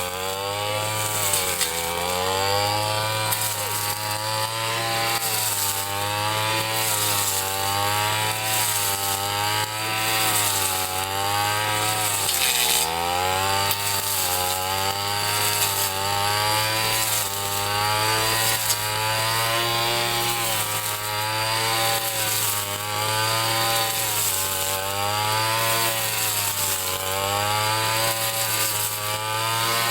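Ryu 30.5 cc two-stroke brush cutter running at high revs while cutting grass, its engine pitch rising and falling every second or two.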